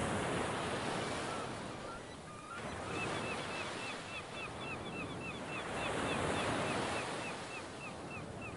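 Ocean surf swelling and receding, with gulls crying in a quick run of short, repeated calls from about three seconds in.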